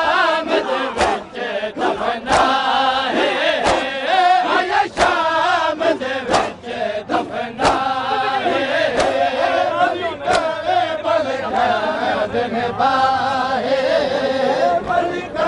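Large group of men chanting in unison while beating their chests in matam. The hand slaps land together as sharp claps in a steady beat, about one every two-thirds of a second, under the chant.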